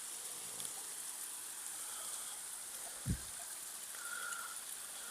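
Water running and splashing at a waterfall: a steady hiss, with one short low thump about three seconds in.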